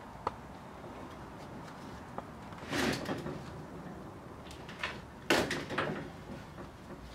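Silicone rubber mold being peeled off a hard Hydrocal plaster casting: two short peeling, rubbing sounds, about three seconds in and again about five seconds in, with a few small clicks.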